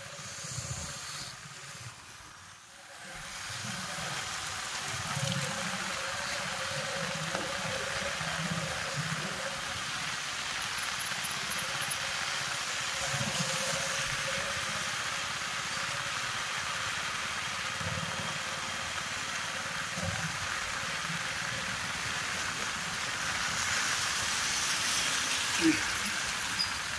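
Heavy rain falling with a steady hiss, with vehicles passing on the wet road. The sound dips briefly near the start, then holds steady.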